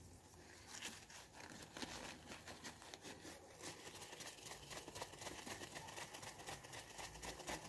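Faint, rapid scratchy rubbing of fingers on the bare glass screen of a Samsung Galaxy Note 8, starting about a second in and going on, as leftover screen-protector adhesive residue is wiped off.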